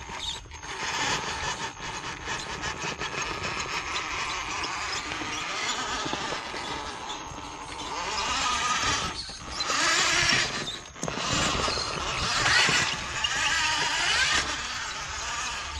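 Electric RC rock crawler's motor and geared drivetrain running under load, with its tyres scrabbling and grinding on granite as it climbs a steep rock line. It swells in surges as the throttle is worked, loudest about eight and twelve seconds in.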